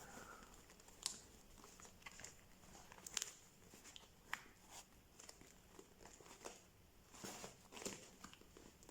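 Faint rustling and a few soft clicks of notebooks being handled and fitted into a notebook cover, with a short cluster of rustles near the end.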